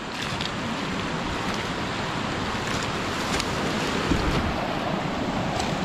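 Steady rushing of flowing water, with a few faint clicks over it.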